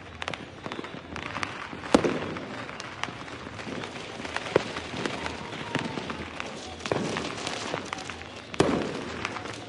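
New Year fireworks going off: a string of sharp bangs and pops over a continuous crackle, with the loudest blasts about two seconds in and again near the end.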